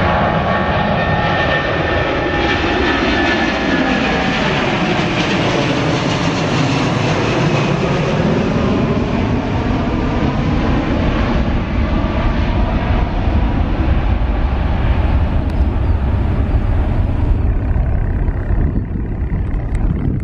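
Airbus A330 twin-jet's engines at takeoff power as the airliner climbs out just after lift-off: loud, continuous jet noise with a deep rumble, its tone sliding in pitch as the aircraft passes and draws away.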